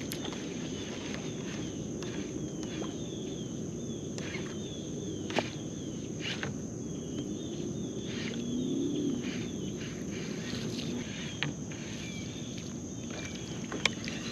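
Outdoor ambience of birds chirping: many short, falling chirps repeated over a steady hiss and a constant high whine. There are a few sharp clicks, and a low sound rises and falls about eight seconds in.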